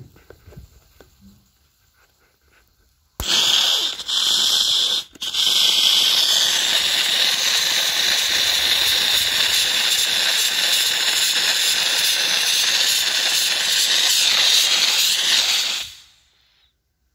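Small handheld steam cleaner blowing a jet of steam from its nozzle: a loud, steady hiss that starts abruptly about three seconds in. It breaks off briefly twice early on, then runs on and fades out near the end.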